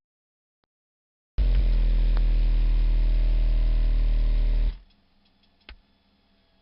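Steady sub-bass test tone from a woofer excursion test track, played through a subwoofer. It starts suddenly about a second and a half in and stops a little over three seconds later, followed by a faint tick.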